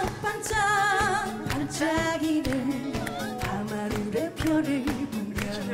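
A woman singing a Korean trot song into a handheld microphone over a backing track with a steady beat, her held notes wavering with vibrato.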